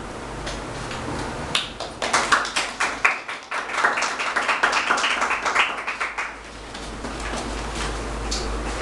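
A small group of people clapping, starting about a second and a half in, growing denser, and dying away a little after six seconds.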